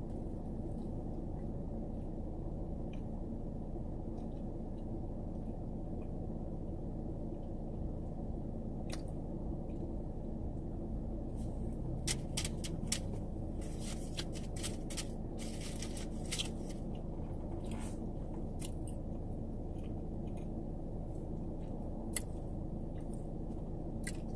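Close-up eating of a Subway sandwich: biting and chewing, with a run of sharp crisp crunches in the middle and one more near the end, over a steady low hum.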